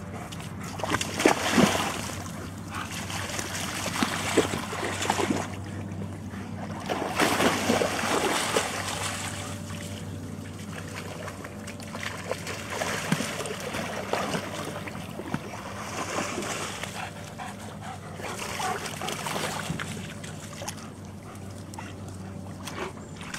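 Dogs splashing through shallow water at a pond's edge, in several bursts of splashing as they wade and run.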